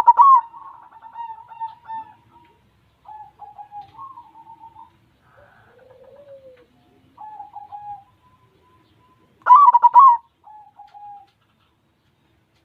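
White zebra dove (perkutut) cooing: a loud rolling coo phrase at the start and another about nine and a half seconds in, with softer trilled coos between.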